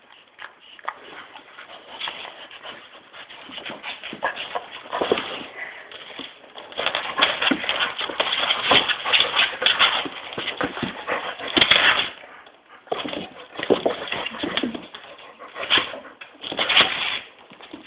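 Two dogs, a bandog and a Staffordshire bull terrier, play-fighting: rough, noisy dog sounds in irregular bursts, building after the first few seconds and loudest in the middle and again near the end.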